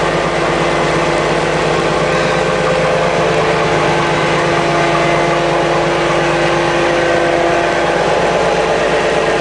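Purse seiner's engine and deck machinery running steadily while sardines are pumped aboard from the net: a loud, even drone with several steady tones.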